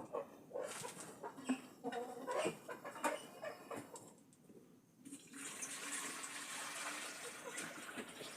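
Water poured from a container into a chickens' water tray, a steady splashing pour starting about five seconds in. Before it, chickens cluck among scattered knocks of handling.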